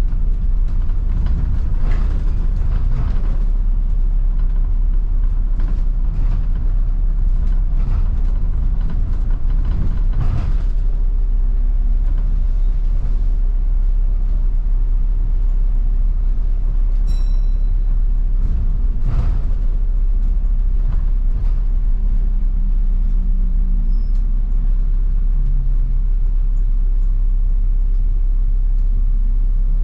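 Upper-deck cabin of a New Routemaster diesel-electric hybrid double-decker bus on the move: a steady low rumble of drivetrain and road, with frequent knocks and rattles from the body. A brief high tone sounds about halfway through.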